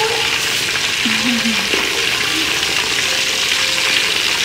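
Hot oil sizzling steadily as a whole scored pomfret deep-fries in a wok, late in the frying when the fish is golden and nearly cooked through.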